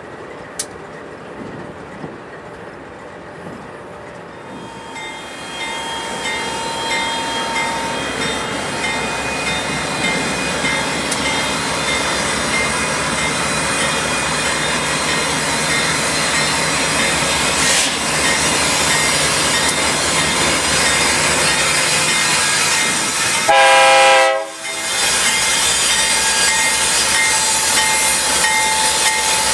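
Diesel locomotives led by a GE Dash 9-44CW pass at close range. The engine and wheels on the rails get louder from about five seconds in as the train nears. A short, loud horn blast sounds late on.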